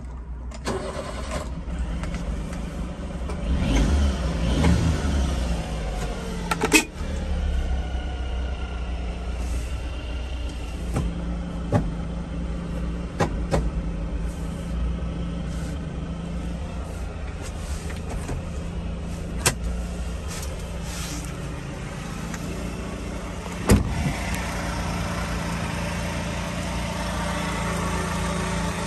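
A 1988 Mitsubishi Minicab kei truck's supercharged three-cylinder engine starts about four seconds in, rises in pitch briefly, then settles into a steady idle. A few sharp clicks and knocks come on top. Near the end the idle is heard from beside the truck's underbody, with more hiss.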